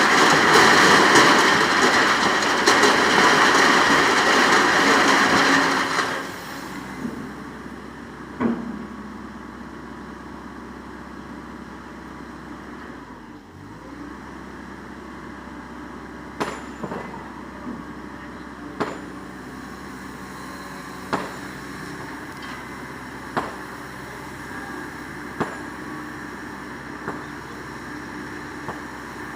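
Excavator working a sand pit: a loud rushing noise for about six seconds, then the machine running steadily with sharp knocks every second or two.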